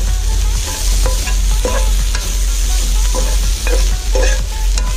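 Chicken strips sizzling as they stir-fry in a frying pan, with a metal spoon scraping and tapping against the pan about twice a second, over a steady low rumble.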